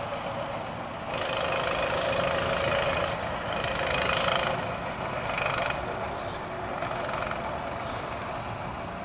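Small engine of a ride-on vehicle running as it drives away, swelling a little and then slowly fading.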